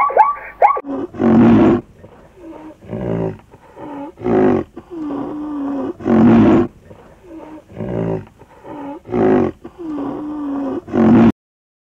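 A large animal's loud, harsh calls repeated every one to two seconds, with lower drawn-out moans between them. Short rising-and-falling yelps come first, and all sound stops abruptly near the end.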